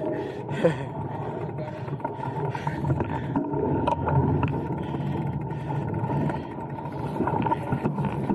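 Mountain bike riding on a dirt trail: steady rumbling tyre and wind noise on the rider's camera, with scattered rattling clicks from the bike.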